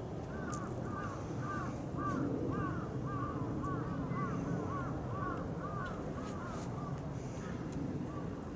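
A bird calling over and over in a steady series of short arched notes, about two or three a second, over a steady low rumble.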